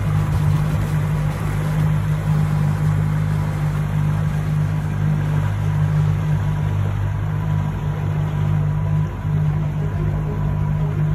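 A motor running steadily with an even low hum.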